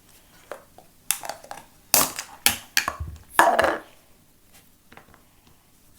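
Handling of the plastic Play-Doh set while pink Play-Doh is pressed into the ice lolly mould: a run of sharp crackling, crunching noises from about one to four seconds in, the longest and loudest near the end of the run.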